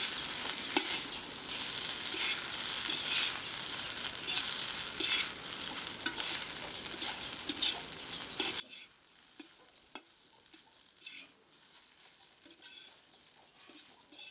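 Steel spatula stirring and scraping cooked rice and carrot around an iron kadai in repeated strokes, over a light frying sizzle. The sound cuts off abruptly about two-thirds of the way through, leaving only a few faint scrapes.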